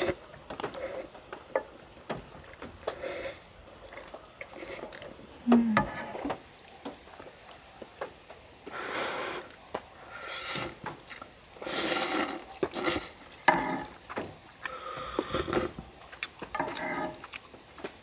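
Ramyeon noodles being slurped in several short bursts of about a second each, mostly in the second half, with small clicks of chopsticks and a spoon against the pan between them.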